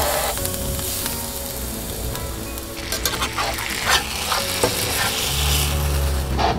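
Crumbed Spanish mackerel fillet sizzling as it fries in oil in a cast-iron pan. From about three seconds in, a metal spatula scrapes and clicks against the pan as the fillet is turned and broken up.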